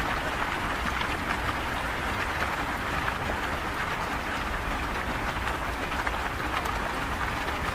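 Heavy rain pouring down: a steady, even rush dotted with fine patter of drops, with a low rumble underneath.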